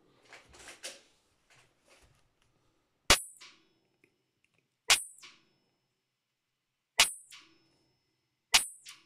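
.320-calibre Bulldog revolver being dry-fired: four sharp metallic snaps of the hammer falling, about two seconds apart, each followed by softer clicks of the action as it is cocked again.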